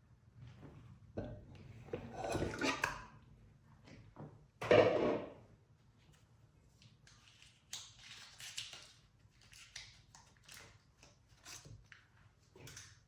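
Kitchen handling noises during food preparation: scattered light knocks and rustles, the loudest about five seconds in.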